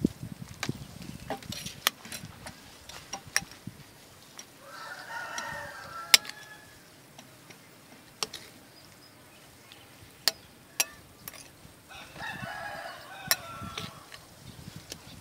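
A rooster crowing twice, about five seconds in and again near twelve seconds, with scattered sharp clicks and knocks in between.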